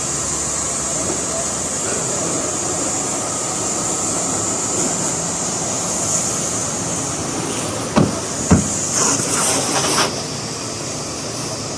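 Steady hiss of a car-wash pressure washer spraying water. About eight seconds in come two sharp knocks, then a few louder surges of spray.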